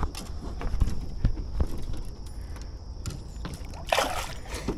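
Water sloshing and light knocks as a smallmouth bass is held by the lip at the surface beside the boat and let go, with a louder splash about four seconds in as the fish kicks away.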